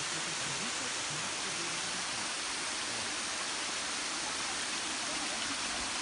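Small waterfall cascading down a rock face: a steady, even rush of falling water.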